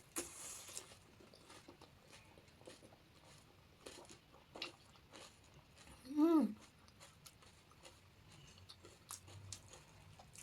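Close-up mouth sounds of chewing panipuri: crisp hollow puri shells crunching between the teeth, as a run of sharp little crackles that is thickest in the first second. About six seconds in there is a short hummed "mm" that rises and falls in pitch.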